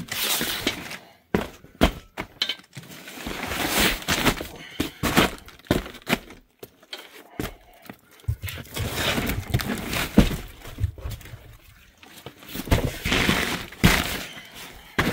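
Cardboard boxes being handled and stacked: irregular scraping and rustling of cardboard in bursts, broken by sharp knocks and thumps.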